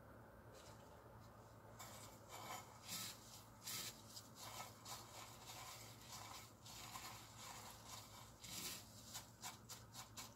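Faint scratchy rustle of dry panko breadcrumbs as gloved hands press and pat egg-dipped pieces of food into them, in a run of short soft strokes starting about two seconds in.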